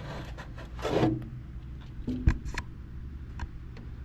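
Rustling and rubbing with scattered small clicks over a steady low hum, a louder swish about a second in and a single sharp knock a little after two seconds.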